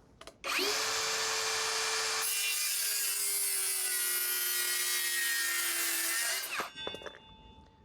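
Mellif 18-volt brushless cordless circular saw spinning up and cutting through a wooden board, its motor whine sagging slightly under load; it is released and winds down with a falling pitch near the end. The cut runs very smooth.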